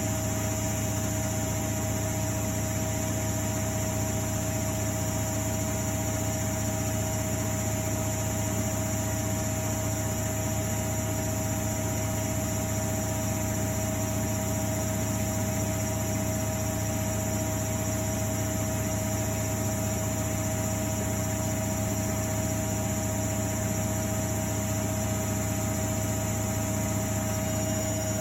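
1999 Miele Novotronic W828 washing machine running its drum steadily at speed, a constant hum with a steady whine over it, with no change in pitch or level, as in the late high-speed spin of a Cotton 60 cycle.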